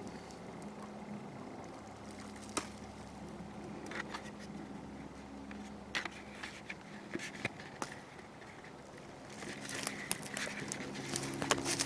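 Footsteps crunching through dry leaves, beginning about nine seconds in and getting louder, after a few scattered light clicks.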